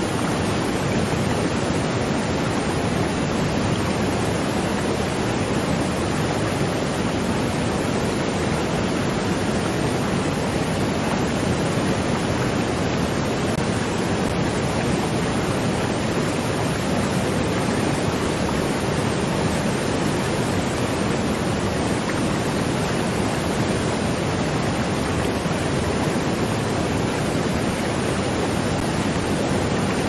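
Waterfall: a steady, unbroken rush of falling water, fuller in the low range.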